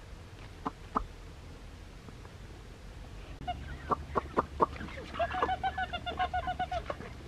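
Domestic fowl calling in a fast run of short, clucking notes, about eight a second, in the second half. It comes after a few sharp knocks.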